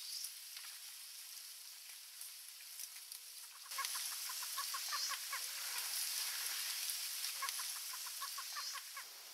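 Marsh ambience: about four seconds in, a bird starts calling in quick runs of short, clipped notes over a steady high hiss. The calls stop shortly before the end.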